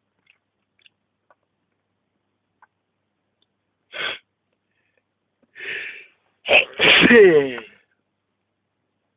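A person sneezing once, brought on by sniffed tobacco snuff: a short sniff about four seconds in, a drawn-in breath, then a loud sneeze whose voice falls in pitch near the end.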